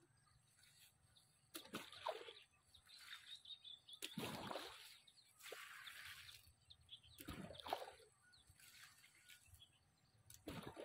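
Water splashing onto garden vegetables in several short pours, one roughly every two seconds.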